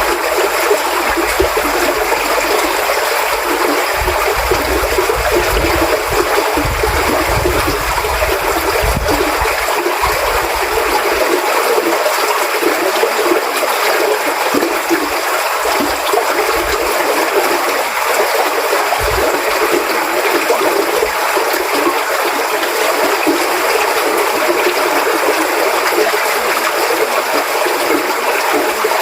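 Running water of a stream, flowing steadily, with a low rumble underneath for about the first ten seconds.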